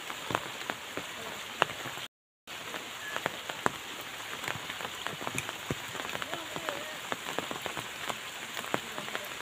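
Rain falling on a flooded river: a steady hiss with many sharp ticks of individual drops landing close by. The sound cuts out completely for a moment about two seconds in.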